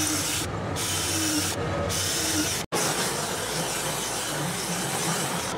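Cordless drill boring into a wooden sword handle, the motor whining in short runs over a steady rushing noise, with a momentary break in the sound a little under three seconds in.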